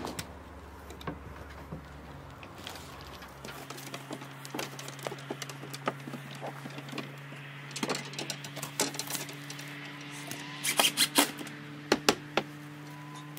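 Scattered clicks and taps from gas fitters handling a tape measure and a yellow flexible gas line against a wooden wall, with a louder run of sharp clicks near the end, over a steady low hum.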